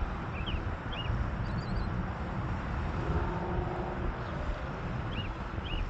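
Low, uneven outdoor rumble of wind buffeting the microphone and distant engine noise, with a small bird chirping over it, short sweeping chirps repeated every half second or so, pausing mid-way and returning near the end.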